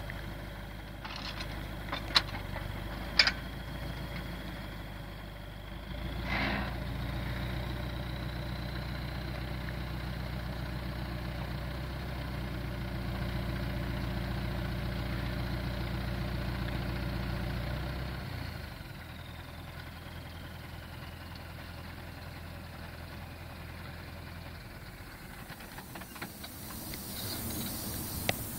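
Farm tractor's diesel engine running, raised to a higher, louder pitch from about six seconds in while the hydraulic crane works, then dropping back about eighteen seconds in and stopping a few seconds later. A few sharp metal clanks sound near the start, and a faint high whine rises and then falls over the engine.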